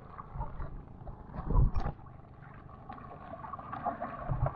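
Water sloshing and gurgling around a small outrigger boat's hull, with a louder low splash or thump about a second and a half in and small knocks of gear being handled.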